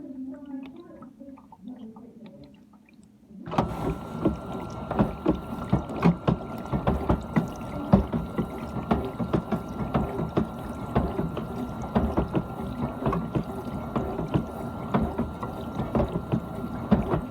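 GE dishwasher's wash pump starting about three and a half seconds in: water spraying and splashing against the inside of the tub, with a steady motor whine under it.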